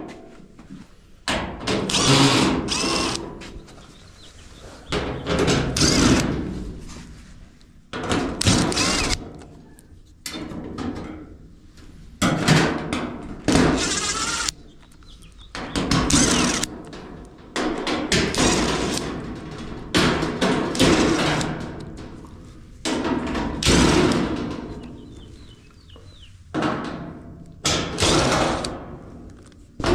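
Power screwdriver running in short bursts, about ten times, mixed with thunks and rattles of sheet metal, as the back panel of a Whirlpool dryer is taken off.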